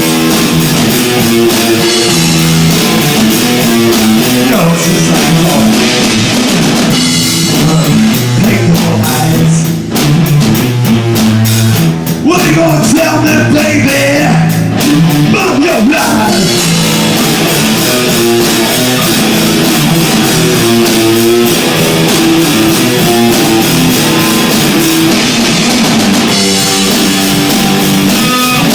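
Rock band playing loud live: electric guitar and drum kit, recorded through an overdriven phone microphone that distorts the sound.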